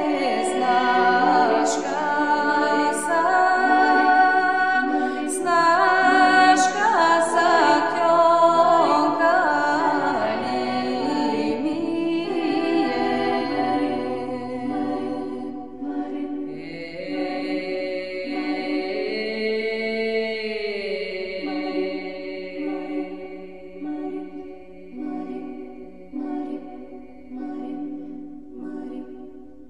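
Background music: unaccompanied vocal singing in long held notes, quieter in the second half.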